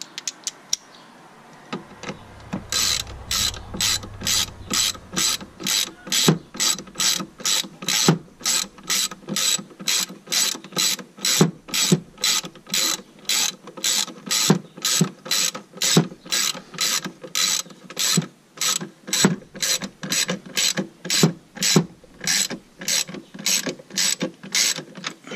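Hand ratchet wrench tightening a bolt with steady back-and-forth strokes, about two a second, each swing giving a short burst of clicks.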